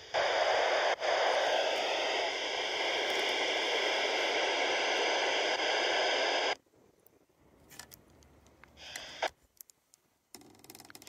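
Handheld amateur radio's speaker hissing with static, faint wavering tones running through the noise, then cutting off suddenly about six and a half seconds in. A few faint clicks and one brief burst of hiss follow.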